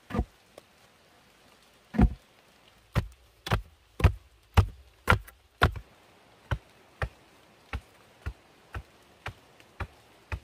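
Heavy wooden log rammed down into a post hole in packed clay soil, a run of dull thuds about two a second. The thuds grow lighter from about six seconds in.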